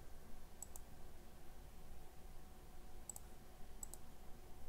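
Three computer mouse clicks, each a quick double tick of press and release: one about half a second in, then two close together around three and four seconds in, over a faint steady room hum.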